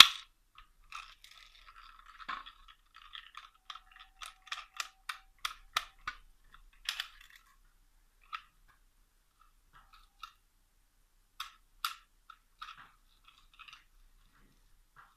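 Small sharp plastic clicks and rattles from a toy BB gun being handled. The loudest click comes right at the start, a quick run of clicks follows a few seconds in, and scattered single clicks come later.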